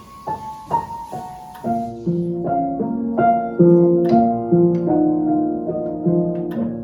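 Background piano music: a few single notes step downward, then fuller chords follow, changing about every half second.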